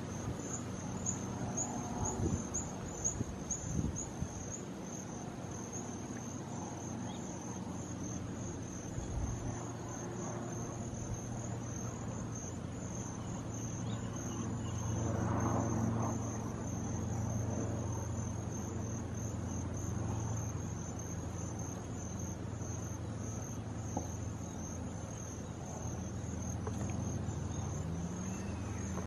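Insects chirring in a steady, high, finely pulsing trill, over a low background hum.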